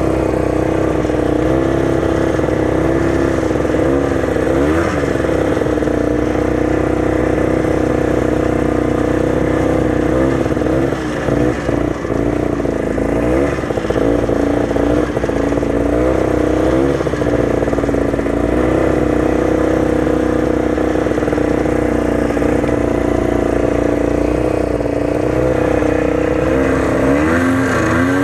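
34-year-old Ski-Doo snowmobile's two-stroke engine running steadily under way, its pitch briefly swooping up and down several times with the throttle.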